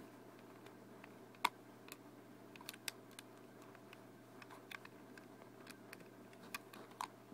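Lego pieces clicking and tapping as they are handled and pressed together: about a dozen sharp, faint plastic clicks at uneven intervals, the loudest about a second and a half in.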